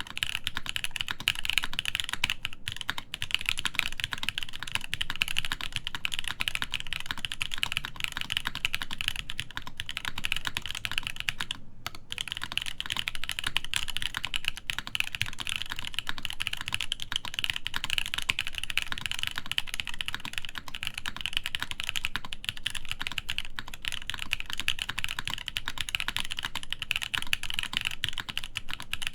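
Continuous fast typing on a SINGAKBD Jaguar v2 top-mount mechanical keyboard with an aluminium plate, lubed Poseidon switches and GMK keycaps: a dense stream of keystroke clacks, with a brief pause about twelve seconds in.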